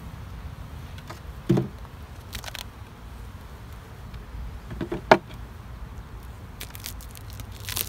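Hive tool and hive parts knocking and clicking as a beehive is worked open, with two sharp knocks, one about a second and a half in and a louder one about five seconds in.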